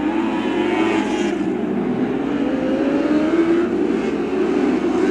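Lightning sprint race cars running on a dirt oval, several engines at high revs, their pitch rising and falling as the cars work through the turns.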